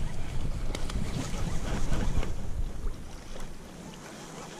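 Wind rumbling on the microphone over the wash of choppy lake water; the rumble drops away about three and a half seconds in.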